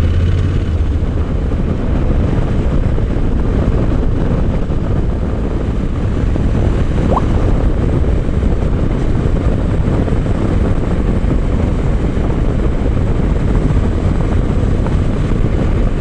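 Honda NC750X's parallel-twin engine running at a steady cruise, with a constant rush of wind and road noise over it.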